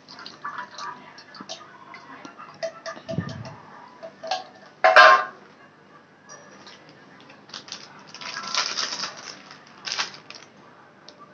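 A steel pot clinks and scrapes against a metal kadhai as liquid is poured from one into the other, with a louder clank about five seconds in. Near the end a plastic packet rustles and is snipped open with scissors.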